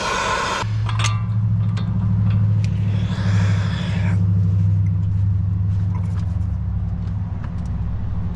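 MAP gas torch flame hissing for a moment at the start, cut off abruptly. Then a steady low rumbling drone carries on, with a few light metallic clicks and knocks from a breaker bar and 36 mm socket worked against a seized CV axle nut that won't break loose.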